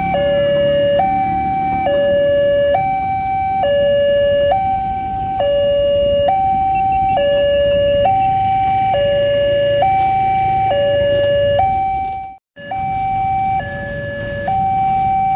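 Railway level-crossing warning alarm sounding a steady two-tone signal, a higher and a lower tone alternating, each held just under a second: the crossing is closed for an approaching train. The sound cuts out for a moment about twelve seconds in, then resumes a little quieter.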